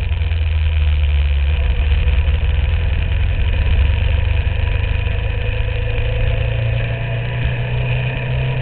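Motorcycle engine running steadily at riding speed, recorded from a camera mounted on the bike itself.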